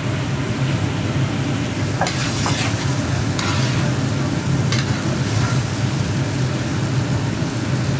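Pilaf broth and oil bubbling and sizzling in a large kazan, stirred with a metal skimmer that gives a few light scrapes between about two and five seconds in, over a steady low rumble.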